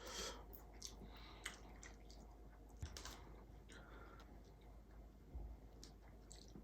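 Faint eating sounds of a person chewing braised pollack and seafood: soft chewing with a few scattered small mouth clicks and smacks.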